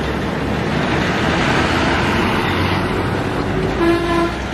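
Diesel engines of heavy haulage trucks working hard to pull a very heavy load up a climb, a steady low rumble with road and traffic noise. A short vehicle horn toot sounds near the end.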